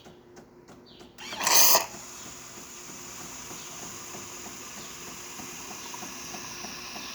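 Jura C9 fully automatic espresso machine starting a cappuccino after a service. Faint regular clicking gives way about a second in to a brief loud burst of noise, then a steady mechanical running sound.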